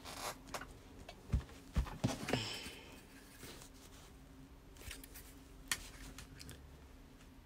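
Faint handling sounds as a strap connector and fabric are set in place on a bag panel: a few light taps and a brief rustle about two seconds in.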